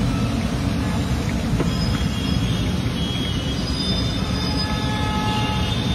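Steady low rumble of a large kadai of oil deep-frying raw banana slices as they are shaved into it on a mandoline. Thin high-pitched squealing tones at several pitches come and go from about two seconds in.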